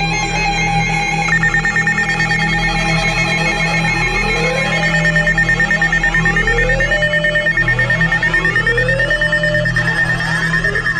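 Electronic alert tones from a broadcast receiver. A steady high tone starts about a second in and is joined by rising pitch sweeps about every second and a half. Near the end come quick up-and-down warbles.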